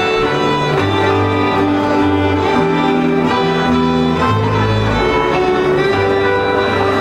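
Folk string band music: fiddles playing a tune over a bowed bass line that moves to a new note every second or so.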